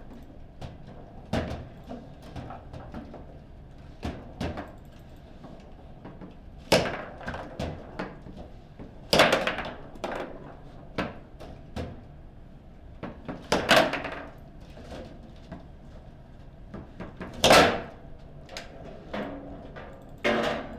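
Foosball table in play: a steady patter of clacks and knocks as the hard ball is struck by the figures and the rods are worked, broken by about five much louder sharp cracks of hard shots and impacts, the last one near the end.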